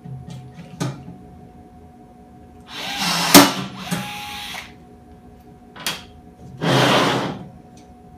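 Cordless power rivet tool setting rivets in an aluminium chassis plate, running twice in short bursts. The first run ends in a sharp crack as the rivet's mandrel snaps off, and the motor then runs on quieter with a steady whine. A few light clicks sit between the runs.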